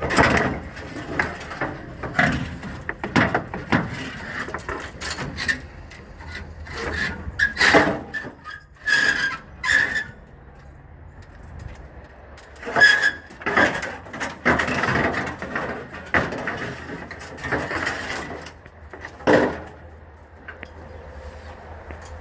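Scrap metal being shifted on a trailer: irregular clanks, knocks and scraping squeals, some of them ringing, over a low steady hum from a vehicle.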